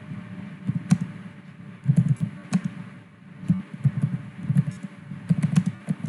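Typing on a computer keyboard: irregular runs of key clacks with pauses between them.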